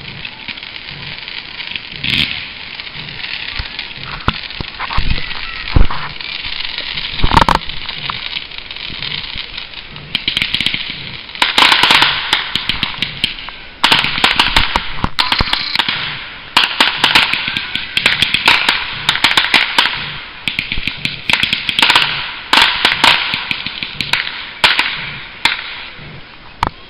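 Fireworks going off: a few separate bangs in the first several seconds, then from about ten seconds in, dense rapid crackling and popping in repeated waves.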